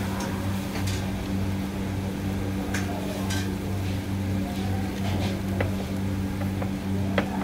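A steady low mechanical hum, pulsing slightly, with a few scattered crackles and sharp ticks over it.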